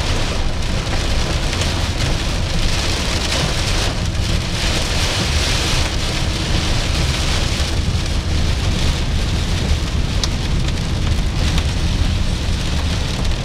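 Heavy rain beating on the roof and windshield of a moving minivan, heard from inside the cabin, with a steady low road rumble underneath.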